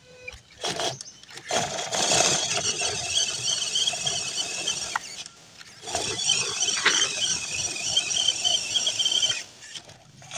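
MN99S RC crawler's brushed 260 motor and gearbox whining high as it drives over dirt, in two runs of a few seconds with a short stop about halfway.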